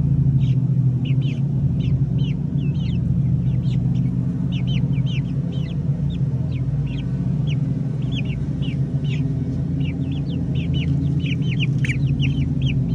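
Young chickens peeping, many short high chirps several times a second, over a steady low hum.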